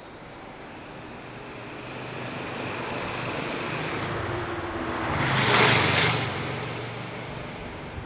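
A motor vehicle passing by: it grows louder, is loudest about five and a half seconds in, then fades away.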